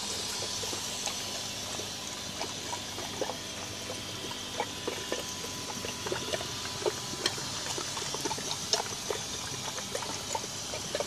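Water trickling and splashing back into a pond from an air-driven airlift filter, with many small irregular drips and bubble pops.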